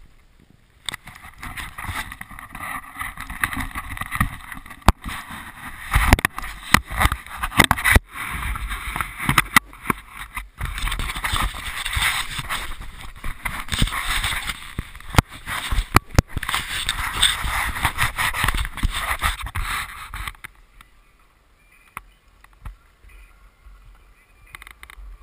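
Rubbing, rustling and repeated knocks of a handheld action camera being moved about and brushed by a glove. The noise stops abruptly about twenty seconds in, leaving only faint sound.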